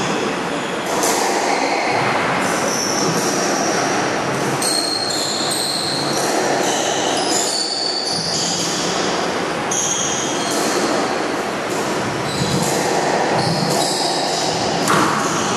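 Squash rally: court shoes squeaking on the wooden floor in many short, high squeals as the players change direction, with sharp cracks of the ball off rackets and walls.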